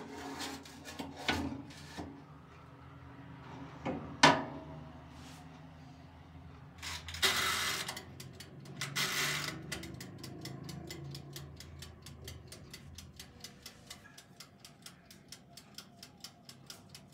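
Small handling noises: scattered knocks with a sharp one about four seconds in and two short rustling bursts, then a run of light, quick clicks, about four a second, from about ten seconds in.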